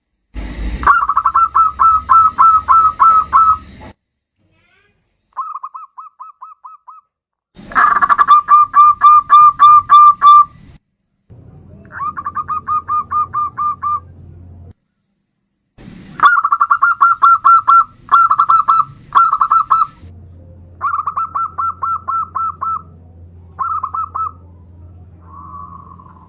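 Zebra dove (perkutut) singing: bouts of rapid, rolling coo notes, about four to five a second, each bout lasting a few seconds with short silent gaps between them.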